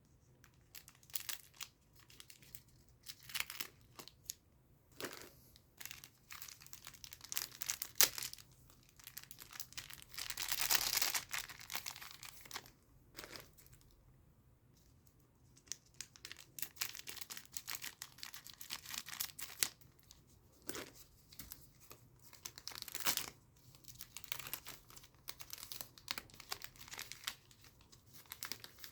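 Foil trading-card booster pack wrappers crinkling and tearing open in irregular short crackles, with one longer rip about ten seconds in.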